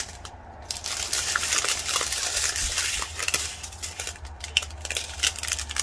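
Small plastic bags of diamond-painting drills crinkling and rustling as they are handled and shifted by hand, with many small sharp crackles.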